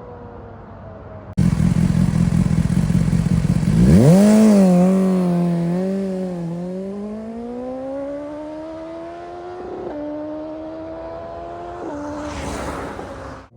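BMW S 1000 R inline-four engine heard through its exhaust. After a cut about a second in there is a loud rumble with wind hiss. The engine then revs up sharply and pulls hard under acceleration, its pitch climbing steadily, jumping once around ten seconds in and dropping near the end.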